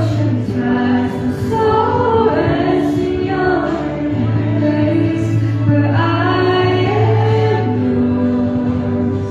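Voices singing a slow worship song over instrumental accompaniment, with long held notes and a steady low bass note underneath.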